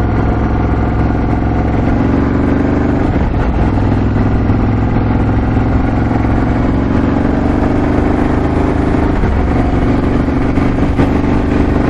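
2018 Ducati Scrambler 1100's air-cooled L-twin engine pulling under acceleration, heard from the rider's seat. Its pitch climbs steadily in each gear and drops at two upshifts, about three and nine seconds in.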